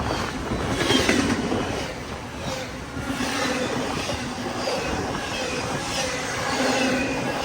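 Intermodal freight cars of a CSX train rolling past, wheels clattering over the rails with occasional thin high-pitched wheel squeal.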